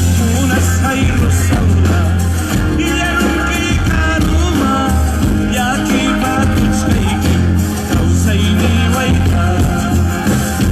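Live band music during a sound check: a singer's melody over a band with a strong, sustained bass.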